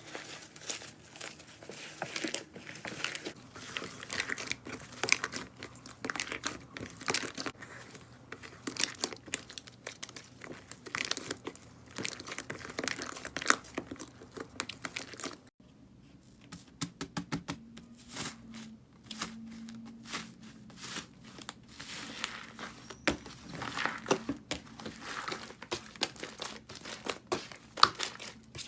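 Slime being squished and pressed by hand, giving off dense, irregular crackling and popping. It breaks off briefly about halfway through, then starts again.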